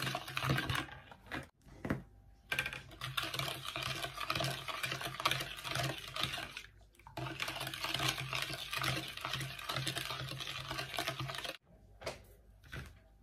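A metal spoon stirs quickly round a plastic bowl of milk mixture, a fast, steady scraping and clicking. It breaks off briefly about two seconds in and again near seven seconds, and stops shortly before the end.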